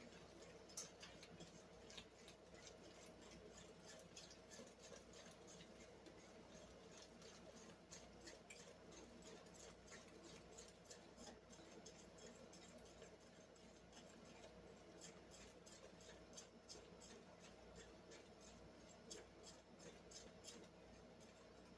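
Faint, irregular clicking and scraping of a spoon against a mixing bowl as a thick sugar-and-butter batter is stirred by hand, over a low steady room hum.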